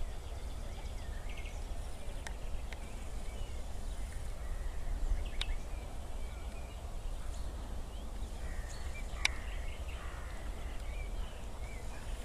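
Scattered short bird calls over a steady low rumble, with a few sharp clicks about two, five and nine seconds in.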